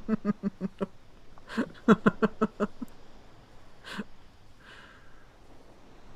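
A person laughing softly in two short runs of quick breathy chuckles, followed by a sniff and a breath out.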